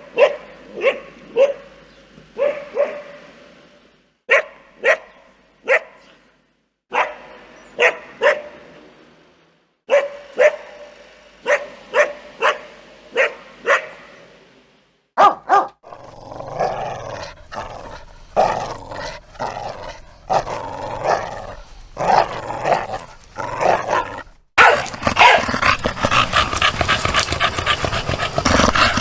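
Dog barking in short groups of two to four barks with pauses between them. About fifteen seconds in come two sharp barks, then rough, pulsing growling. About twenty-four seconds in it cuts to louder, denser growling.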